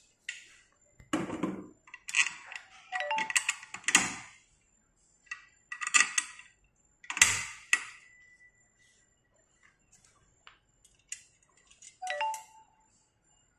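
Steel tube parts of a home exercise machine knocking and clinking together as the foam-gripped handlebar is fitted onto the frame for screwing in: a run of sharp metal clanks and clicks, some ringing briefly. The busiest stretch is in the first half, with a couple more clanks about twelve seconds in.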